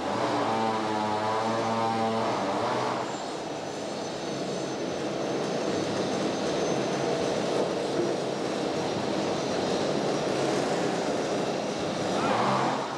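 Pallet-mill machinery running steadily. For about the first two seconds there is a pitched, wavering motor hum, then an even, noisy machine drone takes over, swelling briefly near the end.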